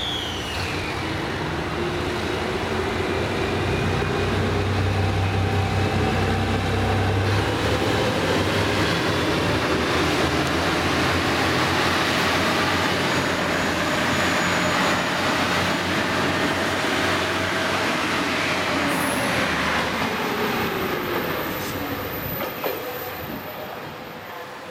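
JR Shikoku 2700 series diesel railcars with their engines running as the train moves off and passes, the engine note rising as it accelerates and falling again later. The sound fades near the end.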